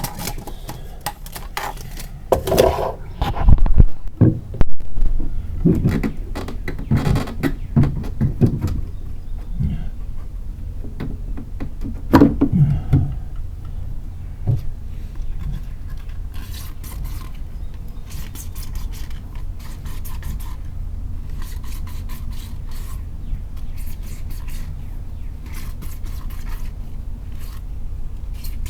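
Irregular scraping and knocking of hand work, loudest in the first half, over a steady low hum, followed by a long run of light clicks and taps.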